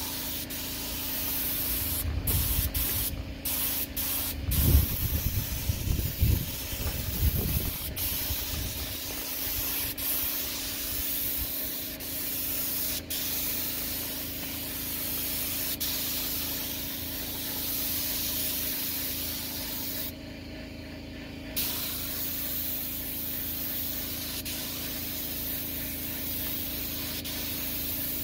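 Gravity-feed paint spray gun on a compressed-air hose hissing steadily as it lays paint on a bus panel. The hiss stops briefly a few times near the start and for about a second and a half around two-thirds of the way through as the trigger is let off.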